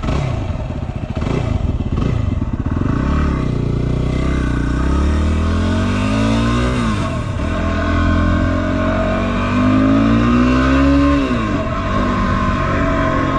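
Yamaha WR250R motorcycle's single-cylinder engine under way. Its revs climb twice, each time dropping back quickly as it shifts up a gear.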